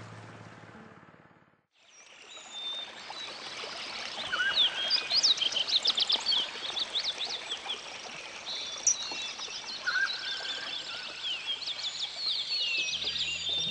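Amazon rainforest ambience: many birds calling in quick, high chirps and sweeping notes over a soft hiss. Background music fades out at the start and comes back in near the end.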